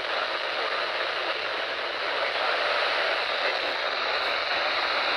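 Steady static hiss from a NOAA Weather Radio receiver on a weak, poorly received signal.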